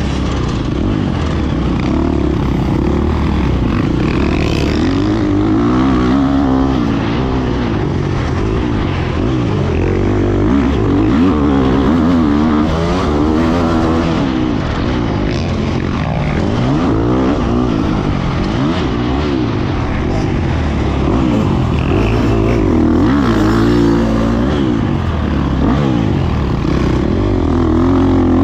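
Motocross dirt bike engine heard from on the bike while it is ridden around a track, its pitch rising and falling over and over as the rider revs through the gears and backs off for corners.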